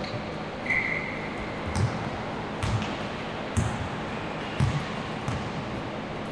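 Basketball bouncing on a court, a dull thud roughly once a second, over steady background noise. There is a brief high squeak about a second in.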